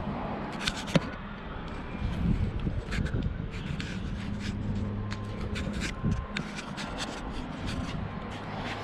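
Handling noise: scattered light clicks with rubbing and scraping, over a steady low hum.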